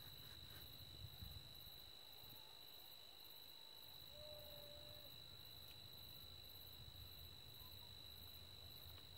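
Near silence: faint insects chirping steadily in the background, with a very high pulsing chirp about twice a second.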